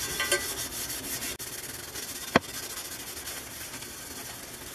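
Brillo steel-wool soap pad scrubbing rust off the inside of a cast iron skillet, a steady rasping scrub through soapy water. A single sharp knock comes about two and a half seconds in.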